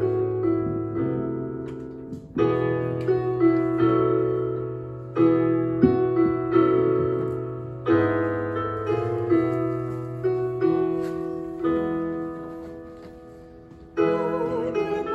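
Digital piano playing a slow hymn in full chords, phrase by phrase, each chord struck and left to fade. Near the end a singing voice comes in.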